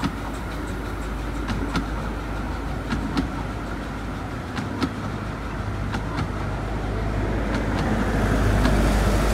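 A train of 15-inch-gauge passenger coaches rolling past close by. It makes a steady rumble with irregular sharp clicks from the wheels on the track, and grows louder near the end.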